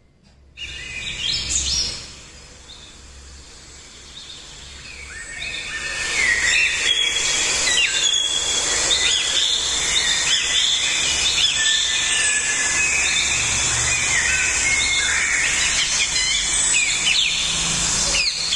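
Many birds chirping and calling at once, with short rising and falling calls over a steady high hiss; it starts abruptly, gets louder about six seconds in, and cuts off suddenly at the end.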